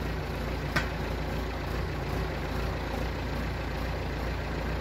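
Farm tractor's diesel engine idling steadily, with one short sharp click about three-quarters of a second in.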